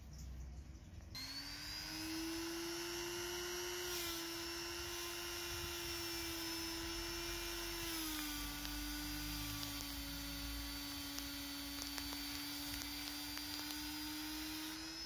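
Small high-speed handheld rotary tool spinning up about a second in, then running with a steady whine as its cup-shaped bit grinds rust off the steel pliers. The pitch drops slightly about halfway through.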